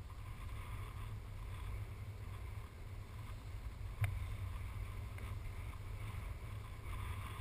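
Wind buffeting the microphone: a steady low rumble, with one sharp click about four seconds in.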